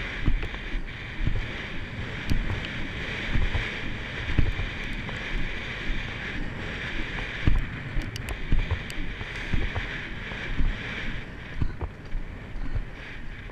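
Haflinger horse's hoofbeats at speed on a dirt track, a regular run of low thumps with the tack and rider moving in time. Wind rushes steadily on the microphone.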